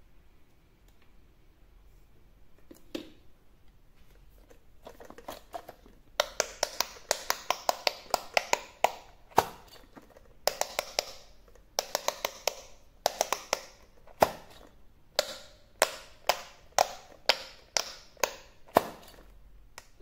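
Silicone bubble buttons of an electric quick-push pop-it game being pressed by fingers, each press a sharp click. After a few quiet seconds the presses come in quick runs of about three or four a second.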